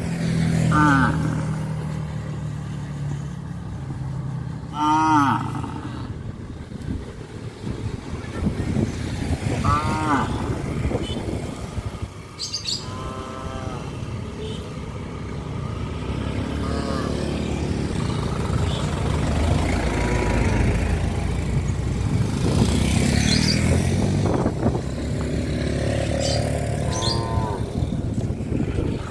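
Cattle mooing, several separate calls spread out, over a steady low rumble of passing vehicles.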